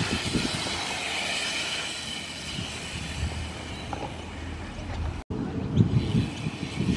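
BMX bike tyres rolling over a concrete skatepark, with wind noise on the microphone. After a sudden cut about five seconds in come several knocks and thuds of the bike on the ramp.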